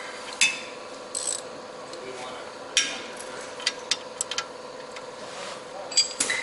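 Scattered metallic clicks and clinks of hand tools: a socket ratchet and a combination wrench working a bolt on a car's rear suspension arm, in short strokes, with a few clicks coming in quick pairs.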